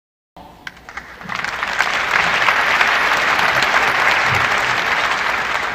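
Audience applause: a few scattered claps that swell within about a second into steady, full clapping.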